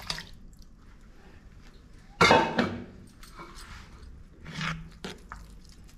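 Reduced milk poured into a brass pot of jaggery-cooked rice, then stirred in quietly with a metal spoon. A loud short sound of unclear source cuts in about two seconds in, and a fainter one comes near the end.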